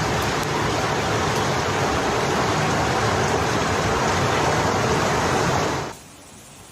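Steady, loud rush of water, cutting off abruptly about six seconds in.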